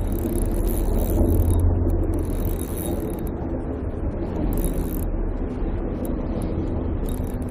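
Steady rushing noise with a heavy low rumble, like flowing water or wind buffeting an outdoor microphone.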